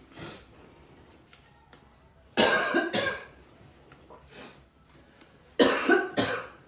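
A man coughing in two fits of about three harsh coughs each, the first about two and a half seconds in and the second near the end.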